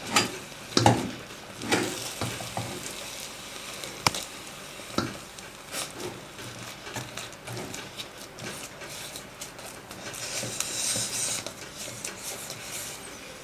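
A spoon stirring and beating thick choux dough of flour, starch, water and oil in a pot on the stove, scraping with irregular sharp knocks against the pot, with a short patch of hiss a little after ten seconds. The dough is still lumpy with flour, being cooked over low heat until it comes together into one smooth mass.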